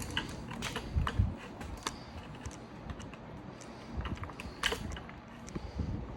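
Scattered light clicks and knocks with a few low thumps, from parts and tools being handled during assembly work; one sharper click a little before the five-second mark.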